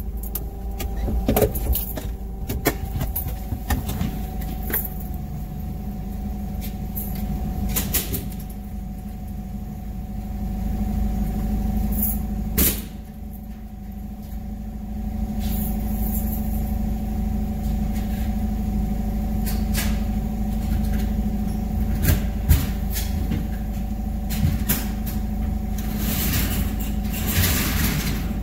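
Forklift running with a steady hum, with scattered clicks and knocks throughout and a longer rattling noise near the end.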